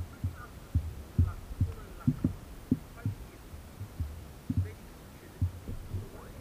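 Irregular low, hollow thumps of canal water slapping against the hull of an inflatable stand-up paddleboard as it is paddled along, about two or three a second, picked up close by a camera mounted on the board.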